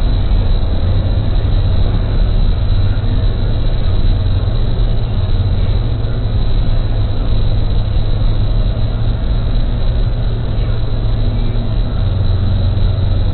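Car cabin noise: a steady low rumble of engine and road heard from inside the moving car.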